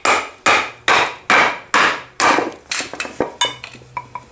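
A wooden baton strikes the spine of a knife forged from a farrier's rasp, driving the blade down through a board. There are about two and a half blows a second, each with a short metallic ring. After about two seconds they turn into lighter, uneven taps.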